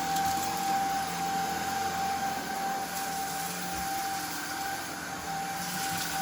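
Shark IZ320UK cordless stick vacuum running steadily on its default medium power setting: a constant motor whine over the rush of suction.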